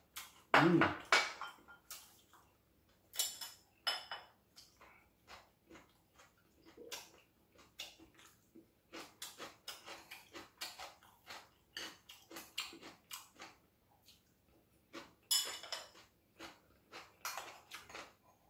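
Metal chopsticks and a spoon clicking and scraping against ceramic bowls and plates in quick irregular taps, with chewing in between. The loudest moment comes about half a second in, a brief sound that falls in pitch.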